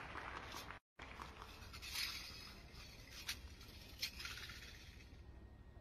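Faint scuffing of a wushu spear routine, with three sharp slaps about a second apart: the athlete's footwork on the competition carpet and the spear being handled.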